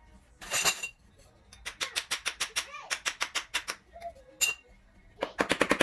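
Plastic shoe rack rods and connectors clattering, with a short burst followed by fast runs of clicks and rattles, about eight a second, as the pieces are handled and fitted together.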